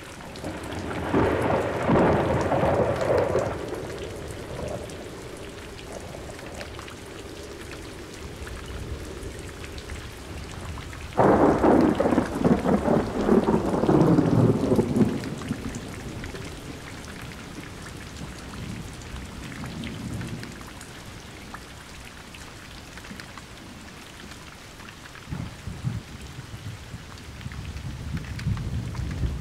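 Steady rain falling during a thunderstorm. A roll of thunder builds about a second in and fades over a few seconds; a second peal begins suddenly with a sharp crack at about eleven seconds and rumbles on for about four seconds, and fainter low rumbles follow later.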